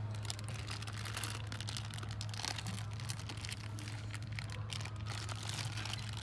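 Dense, irregular crackling over a steady low hum, cutting off abruptly at the end.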